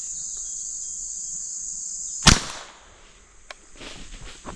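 A single .22 rifle shot, one sharp crack about two seconds in, over a steady chorus of crickets. After the shot the cricket hum is fainter, with a few faint ticks and rustles near the end.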